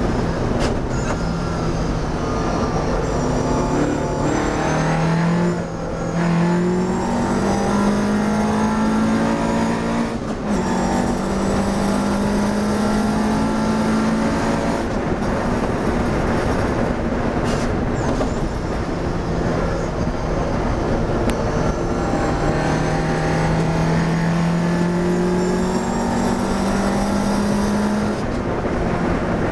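Classic racing car's engine heard from inside the cockpit under hard acceleration, its note climbing through the revs with brief lifts for gear changes about five and ten seconds in, over steady wind and road noise.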